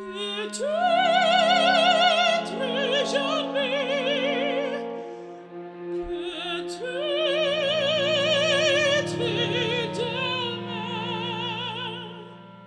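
Background music: operatic, soprano-range singing with wide vibrato over held orchestral chords, in two long phrases with a short break about six seconds in.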